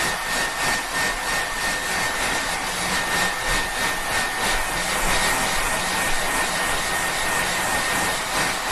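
Hair dryer running steadily: a rushing blast of air with a steady high whine from the motor and fan, with a slight flutter in the airflow during the first few seconds.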